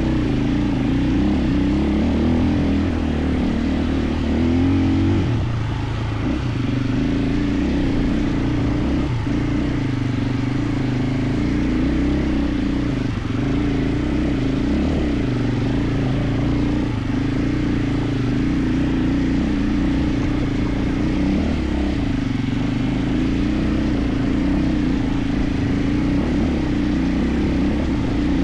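KTM 450 EXC single-cylinder four-stroke enduro engine running steadily while riding, its pitch wavering slightly with the throttle.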